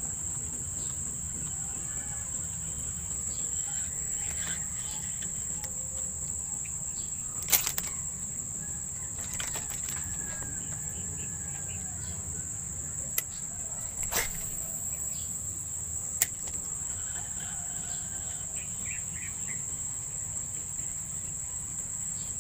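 Crickets singing a steady high-pitched drone without pause, with a few sharp clicks, the loudest about a third of the way in.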